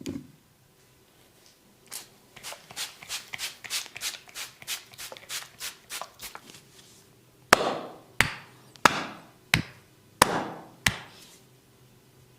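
Hands striking the body in a percussive massage: a quick run of light taps, about four a second, then six louder, sharper slaps spaced well under a second apart.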